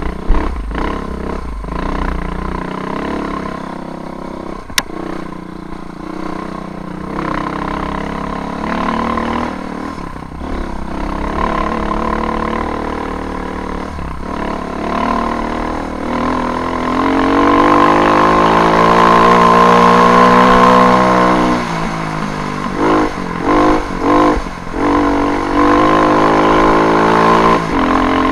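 KTM off-road motorcycle engine running under load on a dirt trail. About two-thirds of the way in the revs climb and hold for a few seconds, then drop, and near the end come several quick surges of throttle, with low rumble from the ride underneath.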